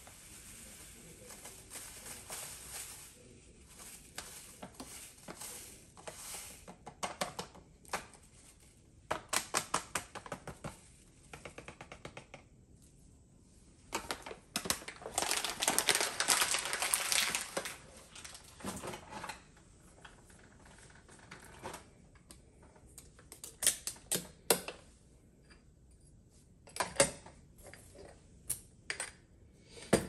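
Coffee poured from its bag into a stainless steel canister: bag rustling and coffee rattling into the metal tin. Then scattered clicks and clinks of kitchen things, with a denser stretch of rustling and rattling about halfway through.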